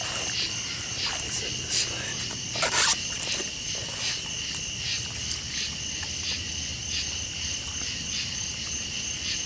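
Crickets chirping steadily, a pulsing high trill repeating about three times a second, with a brief louder noise about three seconds in.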